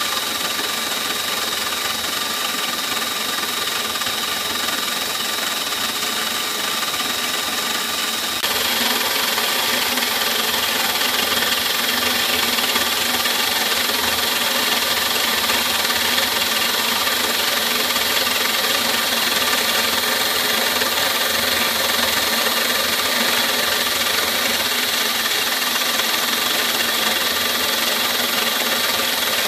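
CNC milling machine's spindle and end mill cutting a clear plastic block on a finishing pass, a steady machine whine over the hiss of the cut. About eight seconds in the sound steps up louder and fuller and stays that way.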